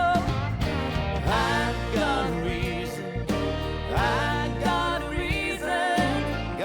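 Country-style song: a singer's voice with vibrato over steady instrumental backing.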